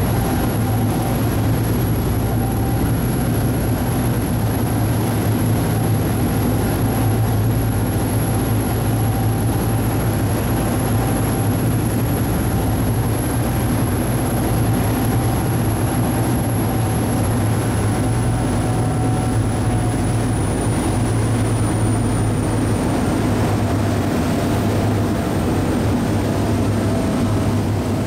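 A passenger ferry's engines running steadily, heard from aboard: a constant low hum that neither rises nor falls.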